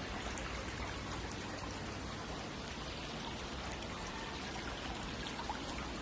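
Shallow rocky stream trickling over stones, a steady even rush of water.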